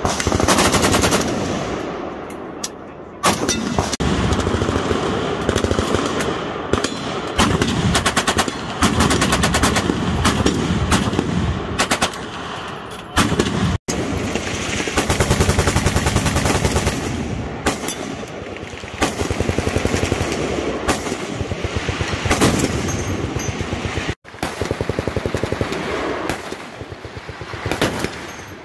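Long bursts of fully automatic gunfire, rapid evenly spaced shots with short lulls between bursts; the first stretch is an AK-47 firing on full auto. The sound cuts out abruptly twice, about fourteen and twenty-four seconds in, and the shooting goes on after each break.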